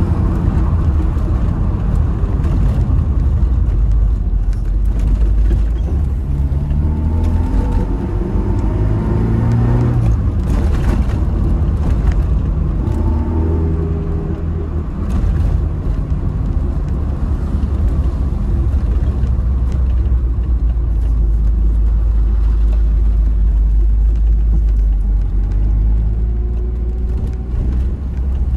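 Tofaş car with a Konya-style aftermarket exhaust, heard from inside the cabin while driving: a steady deep exhaust rumble, with the engine note climbing as it accelerates about six to ten seconds in and again around thirteen seconds.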